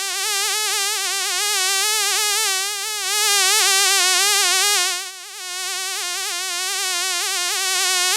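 Fly buzzing in flight: a steady, high droning buzz whose pitch wavers constantly. It dips briefly in loudness a little past halfway, then cuts off abruptly at the end.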